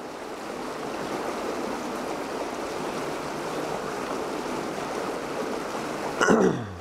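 Swift water rushing through a drainage gutter at a culvert, a steady rush. Near the end, a short, loud sound sweeps down in pitch.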